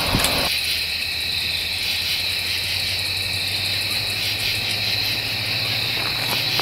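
Distant NJT PL42AC diesel locomotive approaching, heard as a steady low engine hum, under a steady high-pitched buzzing drone.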